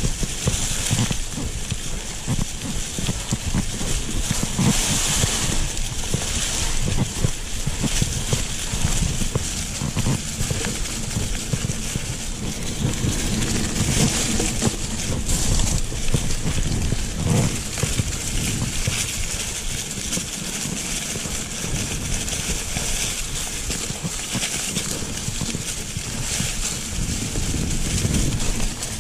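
Mountain bike riding fast over a trail covered in dry fallen leaves: tyres rolling through the leaves and over dirt make a steady noisy rush with constant small rattles and knocks from the bike, and a low rumble throughout.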